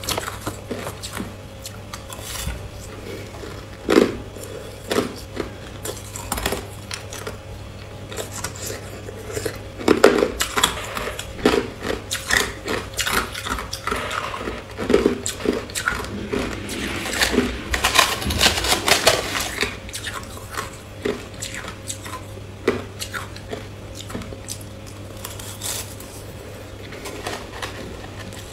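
Crushed ice crunched and chewed in the mouth, a long run of crisp, irregular cracks that bunch together and grow busier around the middle. A metal spoon clinks and scrapes in a plastic cup.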